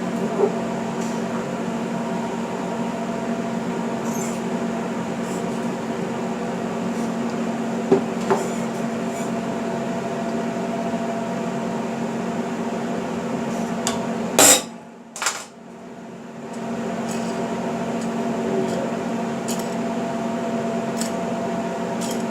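Small stainless-steel parts clinking and being tapped into place, a few scattered metal clicks over a steady machine hum, with two sharper knocks about two-thirds of the way through, after which the hum briefly drops out.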